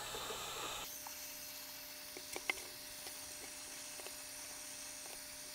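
Heat gun blowing hot air steadily with a hum, softening 3D-printed supports for removal; a few faint ticks about halfway through.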